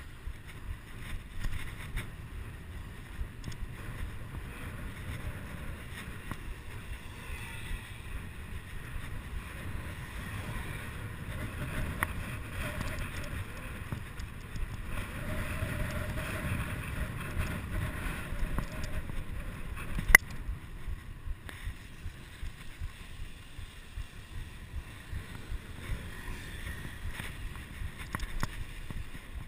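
Wind rumbling over a chest-mounted GoPro camera on a bicycle ridden fast through city streets, with tyre and road noise; a single sharp knock about twenty seconds in.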